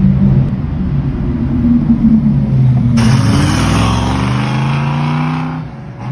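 Car engines in two quick shots: first a sports car's engine running with a steady note, then, about three seconds in, a classic Ford Mustang fastback's engine accelerating away, its note rising and then fading out near the end.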